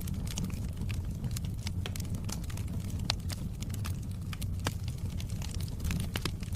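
Wood fire crackling in a fireplace: frequent sharp pops and snaps over a steady low rumble, with a louder pop about three seconds in.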